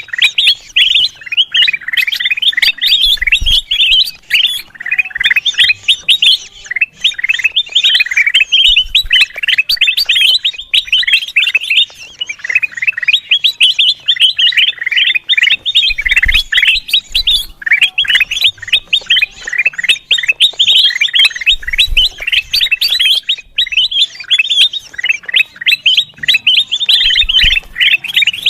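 Kutilang emas bulbul chattering busily: a dense, unbroken stream of rapid chirps and short sliding notes.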